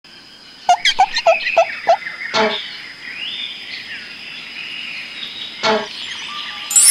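Bird-like chirping: five quick chirps, each falling in pitch, about a second in, then two short, sharper sounds a few seconds apart.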